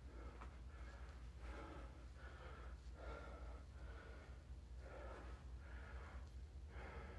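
A man breathing heavily from exertion, breaths in and out in a steady rhythm about every second.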